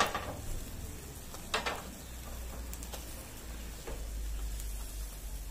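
Fish sizzling in hinged wire grill baskets on a grill, with two metallic clanks of the baskets being handled, one at the start and one about a second and a half in.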